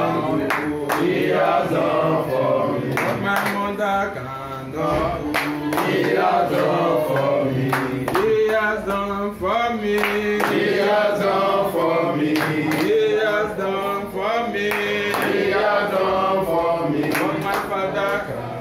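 A group of people singing together, with hand-clapping along with the song.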